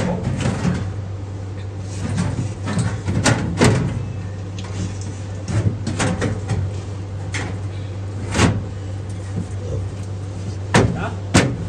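Irregular metal knocks and clunks as a steel mini tub panel is pushed and shifted into place in a car's rear wheel well, over a steady low hum.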